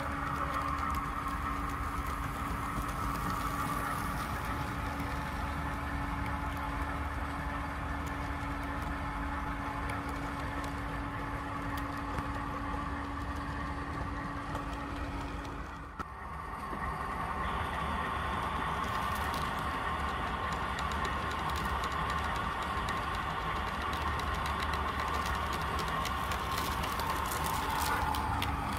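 Model 44 class diesel locomotives running with their train along the layout track, a steady mechanical hum. The sound dips briefly about sixteen seconds in and then carries on.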